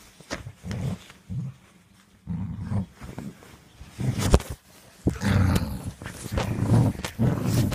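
A dog growling in short repeated bursts while biting and chewing at a cloth cover. The growls run almost without a break from about five seconds in. A single sharp knock comes a little after four seconds.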